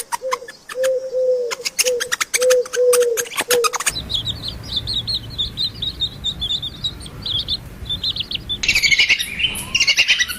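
Birds calling: first a run of short, low, repeated notes with sharp clicks among them, then, about four seconds in, quick high chirps that become a dense chorus near the end.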